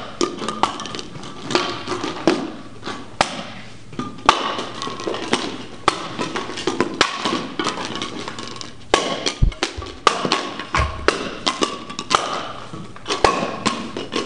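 A run of irregular sharp knocks and taps, several a second.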